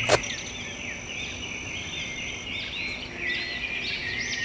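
Birds chirping and calling in many short, overlapping high notes, with a thin steady high whine that stops about halfway through. A single sharp click comes right at the start.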